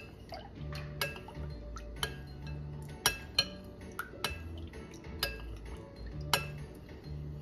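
A spoon knocking and clinking against the side of a cooking pot while a maja blanca coconut-milk mixture is being stirred, with sharp knocks about once a second.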